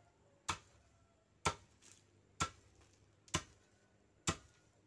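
Long wooden pestle (alu) pounding dried coffee in a stone mortar (lumpang watu): five sharp thuds about a second apart. This is hand-hulling, breaking the skins off the beans.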